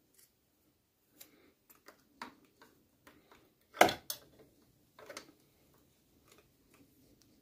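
Metal spanner clinking and tapping against the drive-belt tensioner and engine parts as it is fitted to slacken the ribbed belt, a string of light clicks with one louder knock a little under four seconds in and another about a second later.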